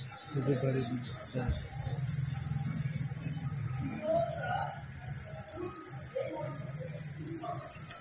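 Cicadas calling from the trees in a continuous, high-pitched steady buzz.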